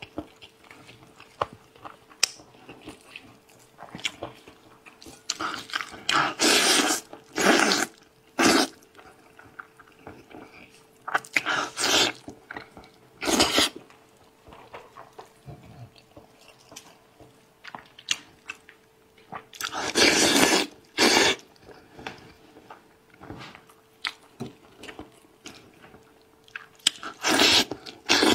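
A person eating spiced sheep's head meat: chewing and biting in loud, irregular bursts every few seconds, with quieter stretches in between.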